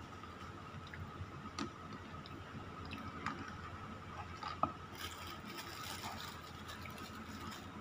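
Metal spoon and fork clicking and scraping against a plate while eating, with scattered light clicks and a sharper one about four and a half seconds in. A soft rustling runs through the second half.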